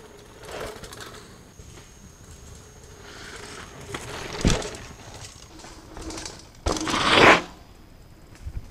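Mountain bike riding past close on a dirt trail: tyres rushing and crunching over the dirt in surges. There is a thump about halfway through, and the loudest rush comes near the end as the bike goes by.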